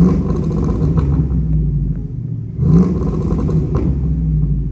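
Cammed 5.3-litre V8 of a 2006 GMC Sierra, with long-tube headers and Cherry Bomb glasspack mufflers, revved up twice onto the two-step rev limiter: each burst rises quickly and then holds a steady note, the first about two seconds long, the second just over one. Through the glasspacks it comes out too quiet.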